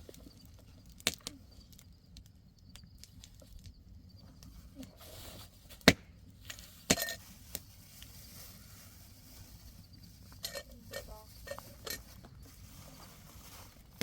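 Scattered sharp knocks and clatters of things being handled: a single knock about a second in, the loudest one about six seconds in, two more just after, then a quick run of lighter knocks near the end.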